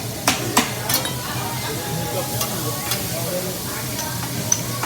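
Food sizzling on a hibachi griddle, with a metal spatula clicking against the steel plate three times in the first second and twice more later.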